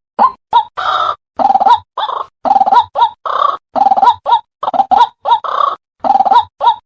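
White-breasted waterhen calling: a steady run of short croaking notes, about two a second, mixed with longer, harsher croaks.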